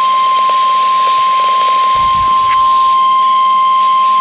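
NOAA Weather Radio warning alarm tone: a single loud, steady beep of about 1050 Hz held without a break, over faint radio static, with a soft click about two and a half seconds in. It signals that an emergency weather message follows.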